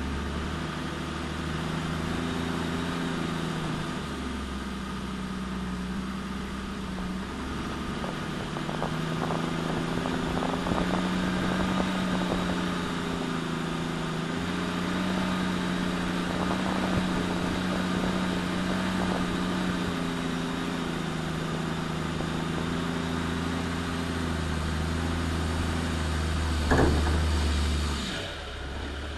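Nissan GQ Patrol's turbocharged TD42 4.2-litre straight-six diesel running at low revs as the short-wheelbase 4x4 crawls over a rough dirt track, its note rising and falling gently. A few light clicks come midway, and one sharp knock near the end is the loudest moment.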